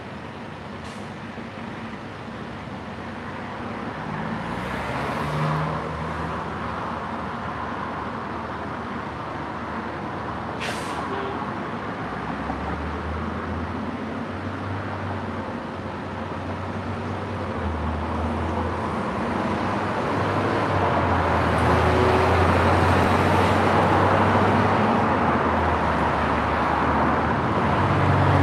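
Road traffic passing on a street: vehicles going by with a steady rush of noise that builds, and a heavy vehicle's low engine drone from about halfway through, loudest near the end. A short sharp hiss about eleven seconds in.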